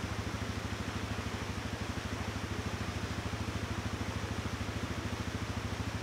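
ATV engine idling steadily with an even, rapid pulse, over the steady rush of a fast-running creek.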